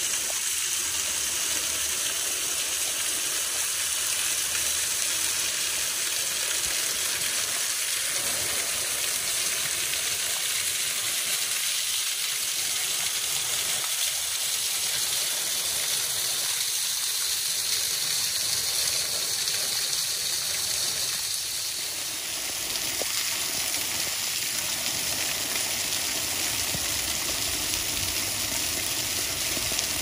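Steady rushing and splashing of water from a thin waterfall pouring down a rock cliff onto stones, in rain. The tone of the rush shifts about two-thirds of the way through.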